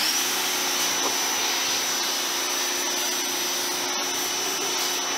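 Greenworks 1700 PSI electric pressure washer running under load while its wand sprays water onto a car, a steady high motor whine over the hiss of the water spray.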